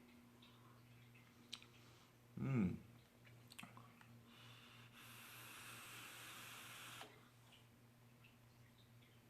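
A vape hit on a quad-coil rebuildable dripping atomizer: a few faint clicks, a short throat sound, then about two seconds of steady hiss as air is drawn through the firing coils, cutting off suddenly. A low mains hum sits underneath.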